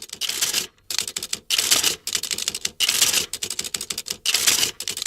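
Calculating machine clattering: dense runs of rapid mechanical clicks, in bursts of about half a second to a second separated by short pauses.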